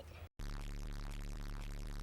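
A short music clip with a steady, heavy bass. It starts abruptly after a brief moment of dead silence and cuts off suddenly at the end.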